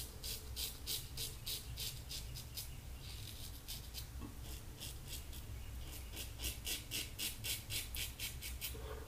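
Fine Accoutrements Marvel double-edge safety razor scraping through lathered stubble in short, quick strokes, about four a second, with a short pause a few seconds in.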